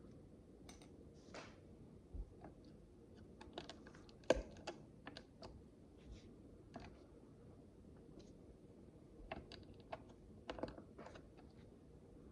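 Tiny plastic micro bricks clicking and tapping as pieces are handled and pressed together. The clicks come light and irregular, in two busy spells with a lull between, and the sharpest click comes about four seconds in.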